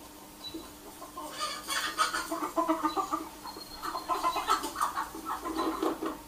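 Hens clucking in a run of short calls that starts about a second in, a recorded farmyard sound effect played back as ambiance for a model railway layout, over a faint steady hum.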